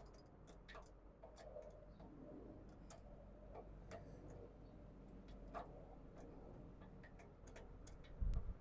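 Faint, irregular small clicks and ticks, with a low thump near the end.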